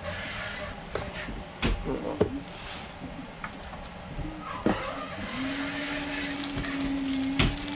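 Handling of a new GoPro HERO9 action camera and its plastic packaging: crinkling plastic and several sharp clicks. A steady low hum starts a little past halfway and runs on.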